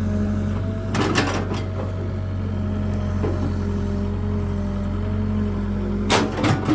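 Excavator engine running with a steady low hum, with sharp knocks about a second in and twice near the end.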